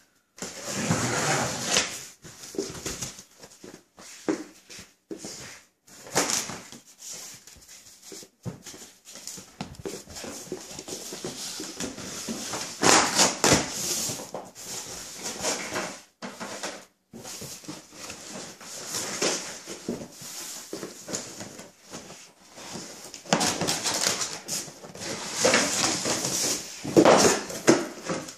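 A cardboard shipping carton being cut open and unpacked by hand: a blade slitting through the tape, then stiff cardboard flaps scraping, creaking and rustling as they are pulled open and the inner box is worked out. It comes in irregular spells with short pauses between.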